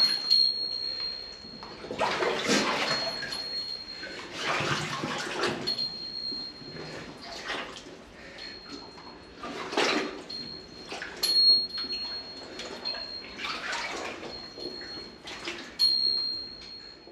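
Footsteps wading and splashing through shallow water on the floor of an old mine tunnel, in irregular swells every two to three seconds. A thin high whine comes and goes.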